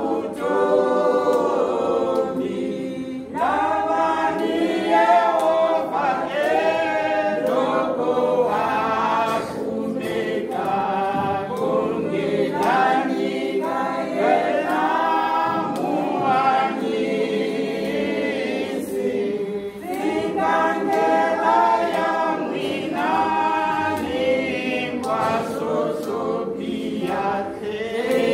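A women's choir singing a church hymn together unaccompanied, in steady rhythmic phrases.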